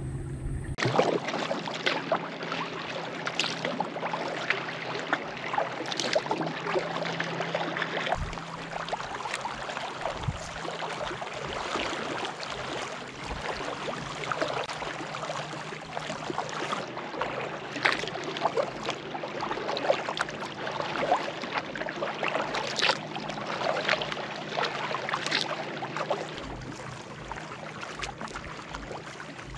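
Kayak paddling: water splashing and trickling off the paddle blades, with repeated stronger splashes every few seconds. It starts abruptly about a second in.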